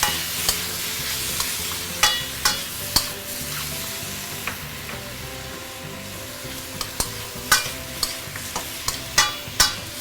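Chicken pieces, shiitake mushrooms and julienned ginger sizzling in hot oil in a wok as they are stir-fried. The stirring utensil scrapes and knocks against the wok now and then, in small clusters.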